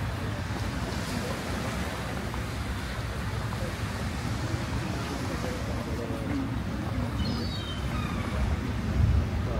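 Sea surf washing steadily on a beach, with wind rumbling on the microphone.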